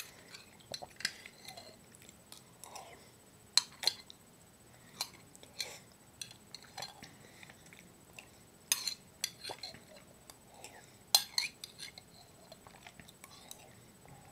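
Metal spoon clinking against a glass jar of spaghetti sauce as it is scooped out and eaten, with a few sharp clinks among lighter taps. Soft chewing and lip-smacking sounds come between the clinks.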